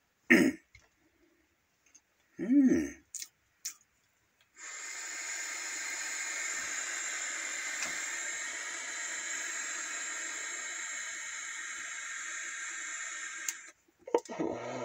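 A long steady hiss of a deep drag on a button-fired vape, lasting about nine seconds and cutting off suddenly. Before it come two short vocal noises and a couple of small clicks.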